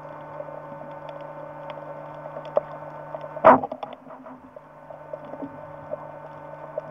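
Steady electrical hum with faint scattered clicks on the soundtrack of underwater spearfishing footage. About three and a half seconds in, one sharp knock breaks through.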